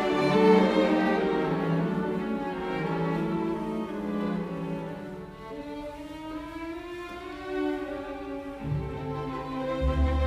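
Background music: slow bowed strings, violin and cello, with a low bass note coming in near the end.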